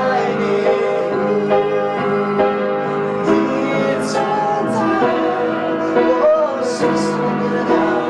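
A man singing a slow love song to upright piano accompaniment, his voice sliding and wavering on held notes over steady piano chords.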